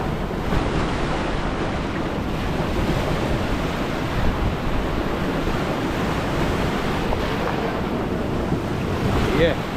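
Surf of a rough sea breaking on the shore, a steady rushing, with wind buffeting the microphone.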